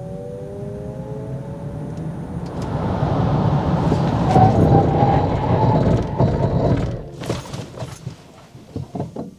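Maxus eT90 electric pickup on the move: road and tyre rumble builds to a peak, then falls away abruptly about seven seconds in, followed by several sharp knocks.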